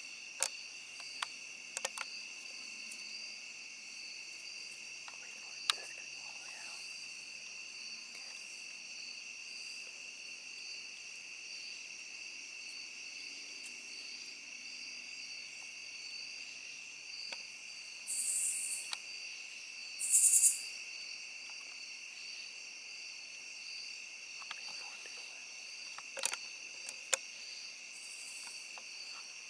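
Steady evening chorus of insects such as crickets, a continuous high trilling hum. A few sharp clicks break in near the start and near the end, and two short, loud high-pitched buzzes come a little over halfway through.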